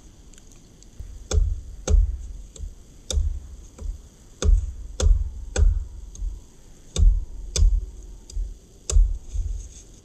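A dog biting and tugging at a dead wooden branch that a man is holding: a run of sharp knocks and deep thuds, about a dozen, spaced irregularly half a second to a second apart.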